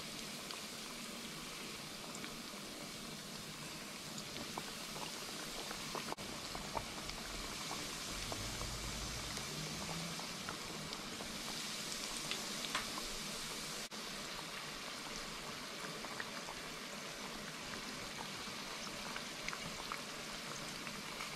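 Battered, panko-crumbed dill pickle spears deep-frying in hot oil in a wok: a steady sizzle with scattered crackles and pops. The sizzle grows a little fuller for several seconds partway through, as more spears go into the oil.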